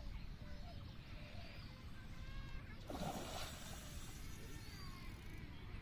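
A single short splash of water about three seconds in, over a steady low rumble and faint high chirps.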